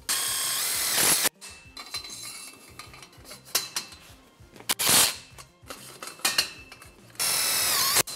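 Cordless drill/driver driving self-drilling washer-head sheet-metal screws into steel tube joint brackets: two runs of about a second each, at the start and near the end, the motor pitch dropping as the second screw seats. Light clicks and knocks of metal parts being handled between the runs.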